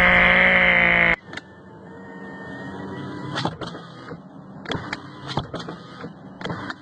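A loud buzzing drone, rising slightly in pitch and then holding, cuts off about a second in. It is followed by a car's electric power-window motor running, a steady whirr broken by irregular clicks and knocks from the window mechanism.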